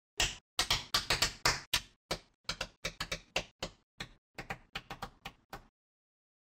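Small neodymium magnetic balls clicking as blocks of them snap together and are set onto a build. The clicks come in a quick, irregular string, some in tight clusters, for about five and a half seconds.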